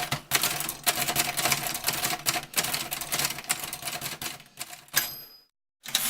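Fast typing on a manual typewriter: a rapid clatter of type bars striking the platen. About five seconds in the typing stops on one stroke with a short high ring, like the line-end bell, and after a brief pause a few more strokes land near the end.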